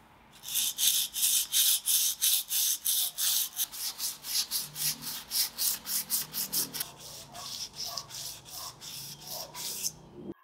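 Hand sanding: a yellow abrasive pad scrubbed quickly back and forth over a flat file-steel knife blade, about four scratchy strokes a second. The strokes are cleaning the dark oil-quench residue off the hardened blade. They grow lighter in the second half and stop just before the end.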